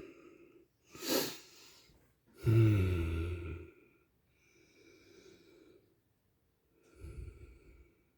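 A man's sharp breath or sniff, then a short hummed vocal sound falling in pitch, followed by a faint low knock near the end.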